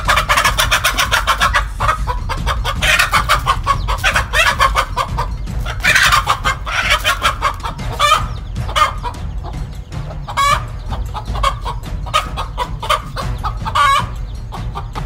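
A mother hen clucking in rapid, agitated alarm calls at a snake that is threatening her chicks.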